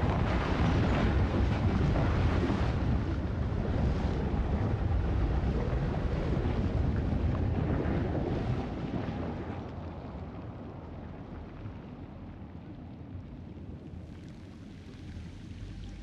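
A loud, low rumbling noise that eases off about nine seconds in and carries on more quietly.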